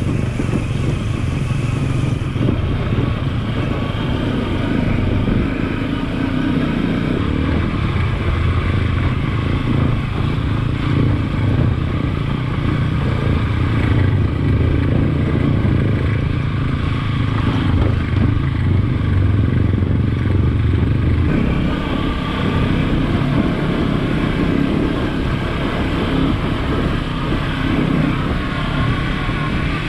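Adventure motorcycle engine running steadily while being ridden, with road noise. Its note changes about two-thirds of the way through.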